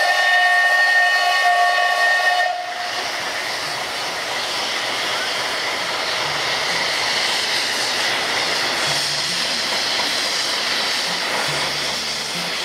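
ČSD class 354.1 steam tank locomotive 354.1217 sounding its whistle in one steady blast that cuts off suddenly about two and a half seconds in, followed by a loud, steady hiss of escaping steam.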